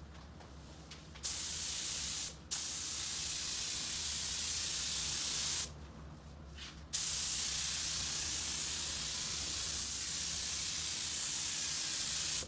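Compressed-air spray gun spraying, most likely primer onto the panel, as a loud steady hiss. It starts about a second in, cuts out briefly twice (once for a moment, once for about a second near the middle) and stops just before the end. A faint low hum runs underneath.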